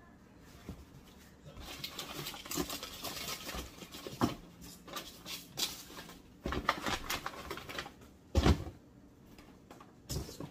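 Hands rummaging in a cardboard shipping box: rustling and scraping of cardboard and packaging, broken by several sharp knocks as boxed items are moved and lifted out, the loudest a little past two-thirds through.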